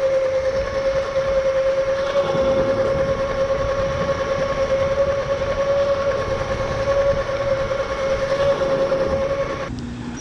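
Razor E325 electric scooter's motor and chain drive whining at one steady pitch at top speed, the stock 24 V system overvolted with an extra battery wired in line, over wind and tyre noise. The whine cuts off just before the end.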